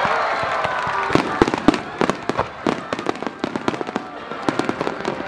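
Fireworks display: a rapid, irregular run of sharp launch bangs and bursts from fan-shaped comets and aerial shells, with synchronised music playing over loudspeakers underneath.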